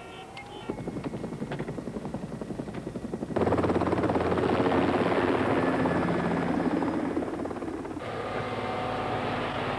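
Helicopter rotor chop with turbine whine, growing sharply louder about three seconds in as the helicopter passes close. Near the end the sound changes to a fire engine on the road, with several held tones.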